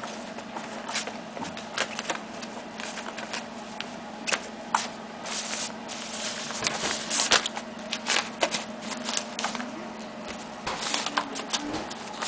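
Kittens clawing, pouncing and scrambling on the fabric cover of a circular cat toy: an irregular run of crackling rustles and sharp ticks, over a steady low hum.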